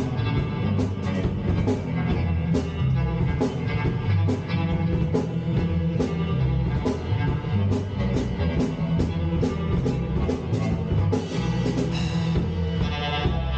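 Live instrumental rock jam by electric guitar, electric bass and drum kit playing together over a steady beat. The sound grows brighter near the end.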